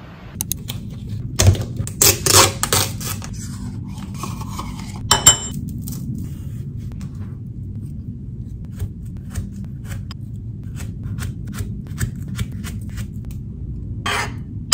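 Kitchen utensils and cookware being handled: a few sharp clinks and scrapes against pots and dishes in the first few seconds, then scattered light ticks over a steady low hum.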